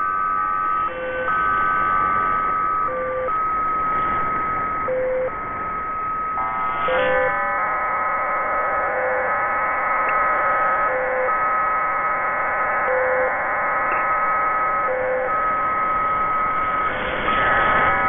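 Electronic soundtrack music: sustained synthesizer tones that step to new pitches every second or two over a short low blip about every two seconds, filling out into a fuller chord from about seven seconds in.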